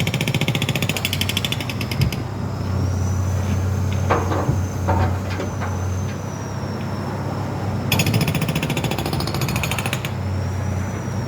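Jackhammer hammering in two bursts of rapid blows, the first stopping about two seconds in and the second starting near eight seconds and running about two seconds. Under it a heavy engine runs steadily, with a few short clanks between the bursts.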